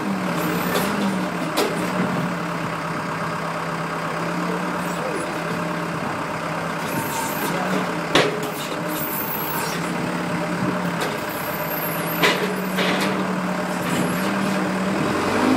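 Telehandler's diesel engine running steadily, with two sharp knocks, one about eight seconds in and one about twelve.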